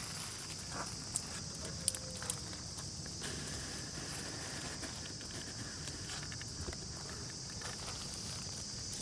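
Steady high-pitched insect chorus, with a few sharp clicks and rustles about one to two and a half seconds in.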